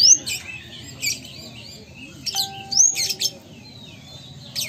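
Male Van Hasselt's sunbird (kolibri ninja) singing: bursts of sharp, high chirps and quick upward-sweeping whistled notes, coming roughly once a second.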